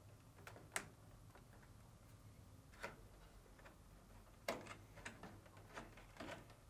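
A handful of faint, sharp plastic clicks and taps from handling a dryer's control-panel wiring connectors and wires as they are pushed home and tucked into their retainers. The sharpest clicks come about a second in and just past halfway.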